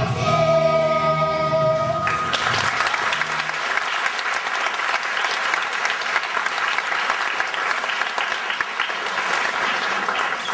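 A song ends on a held final note sung by a children's chorus with accompaniment, which dies away about two to three seconds in. The audience then bursts into steady applause.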